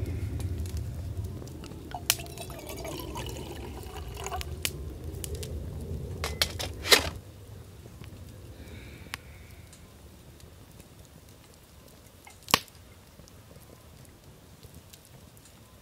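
Small clinks and knocks of a cup and tableware on a camp table, with a trickle of liquid poured for a couple of seconds about two seconds in. Two sharp clicks, about seven and twelve seconds in, are the loudest sounds.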